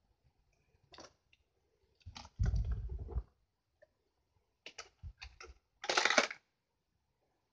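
Plastic toy vehicles being handled and moved by hand: scattered plastic clicks and knocks, a heavier bump with a short low rumble about two and a half seconds in, a quick run of clicks about five seconds in, and a brief scrape about six seconds in.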